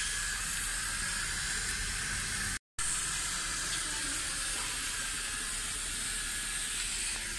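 Steady outdoor background hiss with no distinct events, broken by a brief complete dropout about two and a half seconds in.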